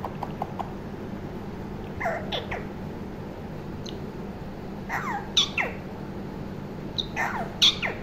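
Alexandrine parakeet calling in three short bouts of sharply falling chirps, about two, five and seven seconds in.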